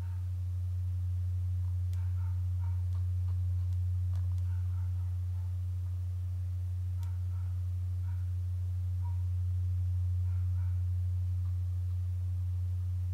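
Steady low electrical hum, a single deep tone that holds unchanged throughout, with a few faint clicks over it.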